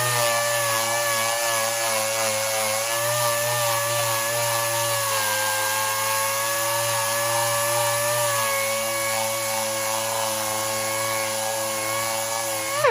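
Power sander running steadily while it strips paint and corrosion from the back of an alloy wheel: a motor whine over a rough grinding hiss. It winds down with falling pitch at the end.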